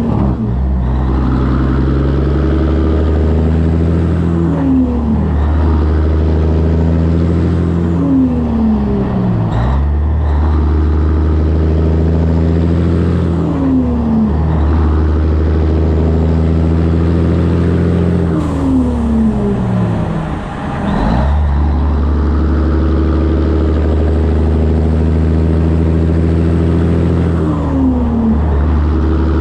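Diesel engine of a 1984 Peterbilt 362 cabover truck running under load while hauling. Its pitch drops steeply about five times, each fall followed by a steady note, as it works through gear changes.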